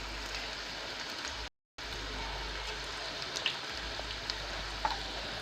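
Karela (bitter gourd) kababs frying in hot oil in a small kadhai: a steady sizzle with a few small crackling pops. It breaks off briefly about a second and a half in.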